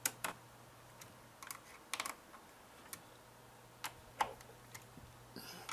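Scattered light clicks and taps at irregular intervals as hands handle a liquid CPU cooler's pump head, hoses and cables inside a desktop PC case, checking that the mounting is secure.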